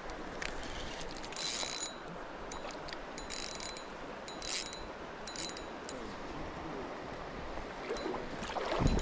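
Fishing reel winding and ratcheting in short spells, a few times, over the steady rush of river water.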